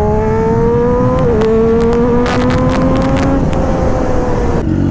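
Triumph Daytona 675's inline three-cylinder engine pulling under acceleration, its pitch rising steadily with a brief dip about a second in. A few sharp ticks come in the middle, the engine eases a little, and near the end the pitch drops abruptly.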